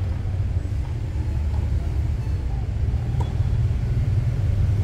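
Steady low rumble over an open tennis court, with a few faint ticks of tennis balls struck by racquets in a distant rally, the clearest about three seconds in.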